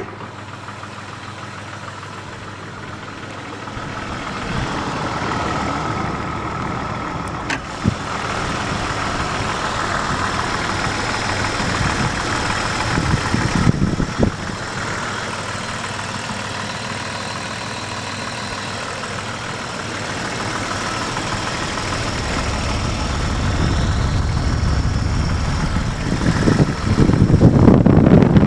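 Jeep Grand Cherokee WJ's 4.0-litre straight-six running at idle with a knocking noise, which the owner thinks sounds like the timing chain or piston slap. It gets much louder for the last couple of seconds.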